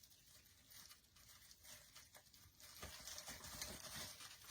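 Near silence: room tone with faint scattered light taps and rustles, a little busier toward the end.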